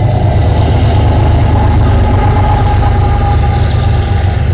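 Diesel locomotives of a CN freight train running down the line, a loud, steady, heavy engine rumble.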